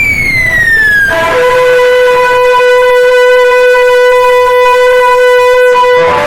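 Loud electronic tone from a DJ sound system during a sound check: a falling pitch sweep for about a second, then a steady, buzzy held note with a horn-like timbre, cut off suddenly about six seconds in.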